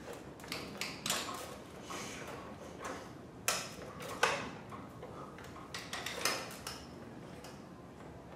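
Mount'n Mover wheelchair mounting arm with a tablet being pushed aside by hand: its joints click and knock irregularly, with two sharper knocks about halfway through.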